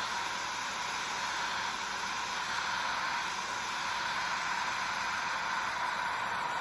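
Heat gun blowing a steady hiss of air, pushing the white resin into wave lacing.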